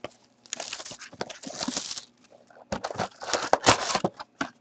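Clear plastic shrink-wrap crinkling and tearing as it is pulled off a cardboard hobby box of hockey cards, followed by the box's cardboard top being opened. The sound comes in irregular crackling bursts, loudest about three to four seconds in.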